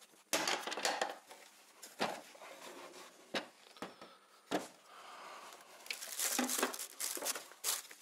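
Paper and plastic packaging rustling and crinkling as the papers and filter bag that came with the dust extractor are handled. There are several sharp knocks and clicks in between, and the crinkling grows busier near the end.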